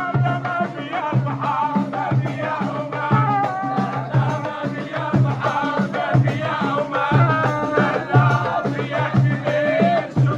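Moroccan wedding band music: drums beating a steady, regular rhythm with rattling percussion under a wavering melody line.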